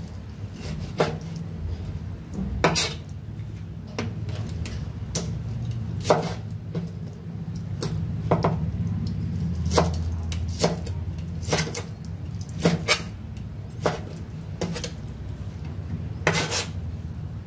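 Kitchen knife slicing cooked meat on a wooden cutting board: irregular sharp knocks of the blade meeting the board about once a second, a few of them drawn out into a short scrape, over a low steady hum.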